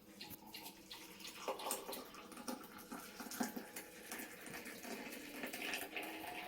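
Hot kashayam (a herbal decoction) being poured from the pan through a strainer into a glass: a faint trickling splash, with small clinks of the utensils.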